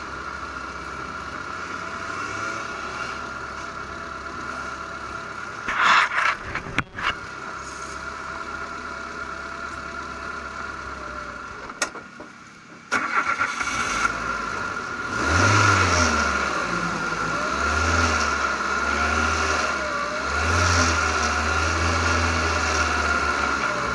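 Formula RP1 single-seater race car engine idling, with a few loud knocks about six seconds in. Near the middle it goes quiet and is started again, then revs rise and fall as the car moves off.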